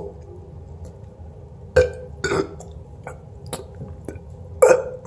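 A person burping a few short burps, one about two seconds in and a louder one near the end.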